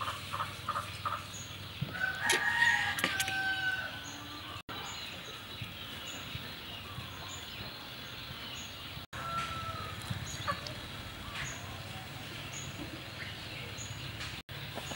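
A rooster crows once, about two seconds in, for a second and a half. Chickens cluck briefly now and then afterwards. A few light clicks of a knife and fork on a plate come at the start.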